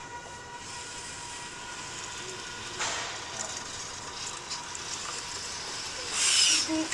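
Felt kinetic sculpture moving as it is touched: a faint steady whine under two short hissing rustles, a weak one about three seconds in and a louder one near the end.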